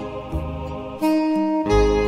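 Hymn melody played on a Ringway RS400H electronic organ's soprano saxophone voice, in held notes over an organ bass line. A louder new note comes in about a second in.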